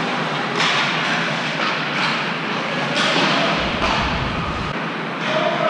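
Ice hockey play in a rink: skates scraping and carving the ice in repeated short bursts over a steady echoing arena din, with a low rumble about three and a half seconds in.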